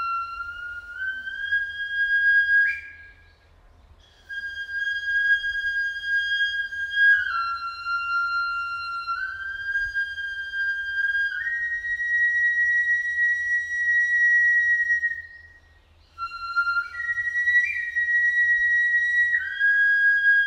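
Jomon flute (jōmon-bue) played slowly: long, pure, high notes held and stepping up and down between a few pitches. The playing breaks off twice for breath, about three seconds in and again about sixteen seconds in.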